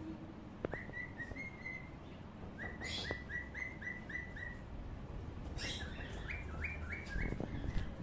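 A bird chirping in three quick runs of short, repeated notes, about four a second.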